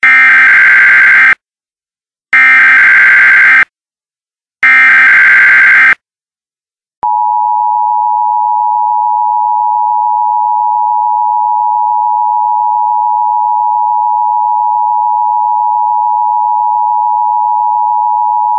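Emergency Alert System test tones: three short bursts of warbling digital SAME header data, about a second and a half each with a second of silence between, then, about seven seconds in, the steady two-tone attention signal.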